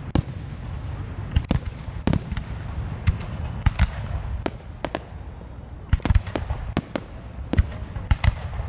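Aerial fireworks shells bursting in quick, irregular succession: many sharp bangs over a continuous low rumble.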